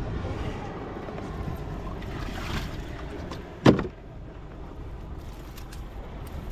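A hollow plastic tube dropped onto a kayak's bow garbage net, landing with a single loud knock a little under four seconds in, over a steady low rumble of wind and water around the kayak.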